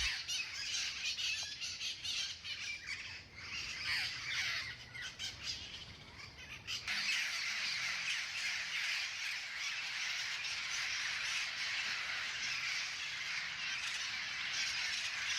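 Wild mitred conures and red-crowned amazon parrots squawking as they squabble over food. About seven seconds in, the separate squawks give way to a dense, steady din of many calls from the flock.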